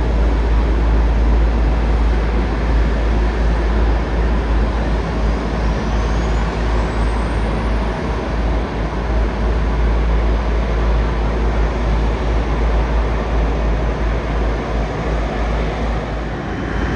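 Loud, steady jet airliner engine noise, with a thin high whine rising in pitch from about four to eight seconds in. Wind buffets the microphone with a heavy low rumble.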